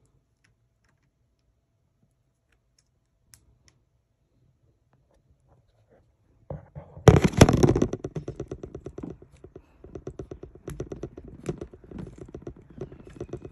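Handling noise from the recording phone being picked up and moved. It starts about six and a half seconds in with a loud clatter, then goes on as irregular rapid clicking and rubbing.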